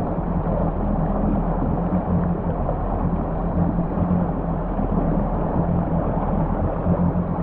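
Supercharged Yamaha GP1800R SVHO jet ski engine running steadily at idle, with water gurgling around the hull and exhaust.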